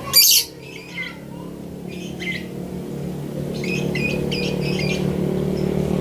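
Lovebird calling: one loud, sharp squawk right at the start, then short, high chirps and twittering in scattered bursts. A low engine hum builds up underneath from about halfway through.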